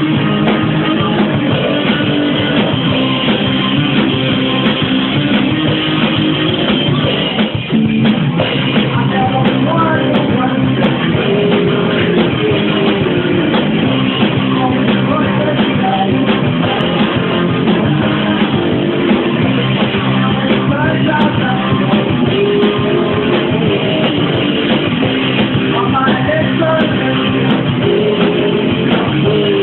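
A rock band playing, with electric guitars and drum kit and a voice singing, loud and steady, with a brief drop in level about eight seconds in.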